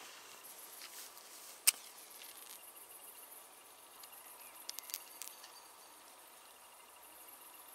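Crickets chirping in a steady high-pitched chorus at dusk. One sharp, loud click comes about a second and a half in, and a few smaller clicks follow near the middle.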